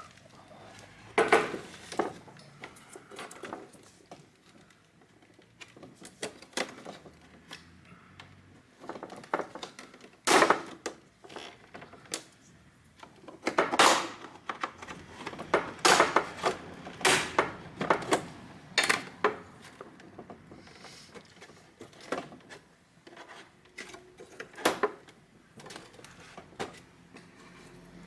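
Sharp plastic clicks and knocks from an all-in-one PC's plastic housing as its edge is pried and pulled by hand to lift the screen away from the rear case, about a dozen irregular snaps with the loudest near the middle. The clips are still holding.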